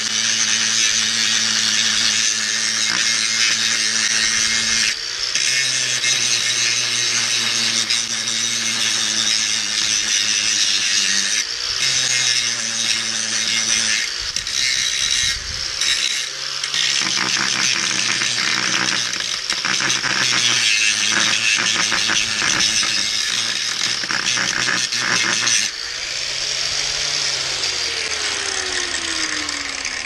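Electric angle grinder grinding down a weld bead on steel, the motor's whine sagging and picking up again a few times as the disc is pressed into the work and eased off. A few seconds before the end it is switched off and winds down in a falling whine.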